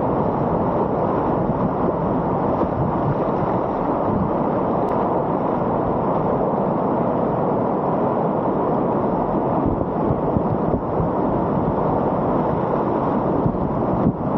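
Steady rushing of whitewater in a river at high water.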